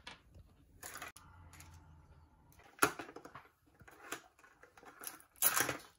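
Hands handling a Mini Brands plastic capsule ball, peeling and unwrapping it: crinkly rustles about a second in and again near the end, with one sharp click about three seconds in, the loudest sound.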